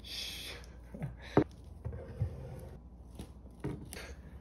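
Bottles being handled and set into a cardboard box holder: soft rubbing with a few light knocks of a glass bottle against cardboard and plastic, after a short soft hiss at the start.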